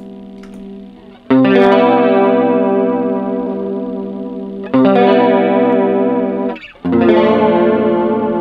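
Electric guitar strumming chords through an analog chorus pedal. Three chords are struck, about a second in, near the middle and near the end, and each is left to ring out with a wavering shimmer.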